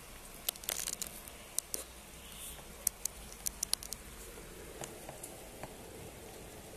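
Steady hiss of rain, with a flurry of sharp clicks and crackles right at the microphone from about half a second in until about four seconds in.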